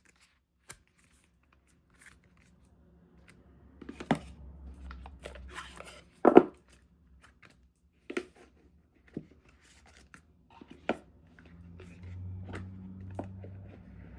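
Cards and their cardboard box being handled: scattered taps, knocks and rustles, with one louder knock about six seconds in.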